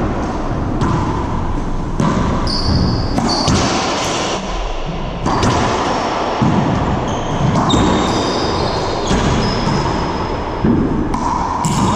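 Racquetball doubles rally: the ball smacks off racquets and the court walls roughly once a second, ringing in the enclosed court, with short high squeaks of sneakers on the hardwood floor between hits.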